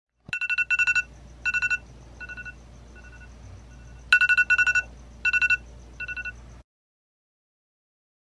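iPhone alarm tone ringing: rapid high beeps in repeating bursts, each loud burst followed by softer ones. It cuts off suddenly about six and a half seconds in as the alarm is snoozed.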